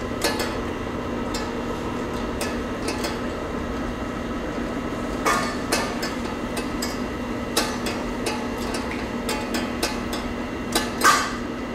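A steady mechanical hum with irregular sharp clicks and knocks throughout. The loudest is a quick double crack near the end.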